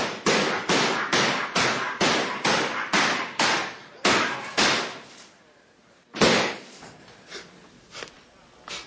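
A club being swung hard again and again, landing heavy blows about twice a second for some five seconds. After a short pause comes one more loud blow, then a few lighter knocks.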